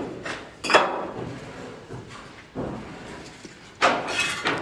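Hand tools at work on masonry: three sharp knocks with a slight metallic clink, the first just under a second in, the next just past halfway, the last near the end.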